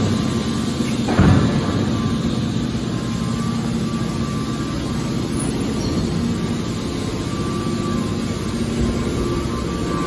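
Hydraulic scrap-metal baler running, its power unit giving a steady hum. A single heavy thud comes about a second in as the hinged press lids fold shut.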